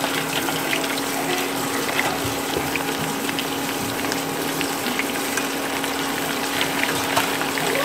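Breadcrumb-coated chicken drumsticks deep-frying in hot oil in a small steel pot: a steady sizzle dotted with small crackling pops, over a steady low hum.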